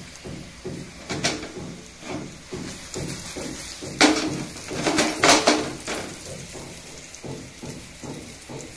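Irregular knocks and clatter from a pan of brinjal slices frying on a gas stove, over a faint frying sizzle. The loudest, sharpest knocks come around four seconds in and again twice about a second later, each ringing briefly.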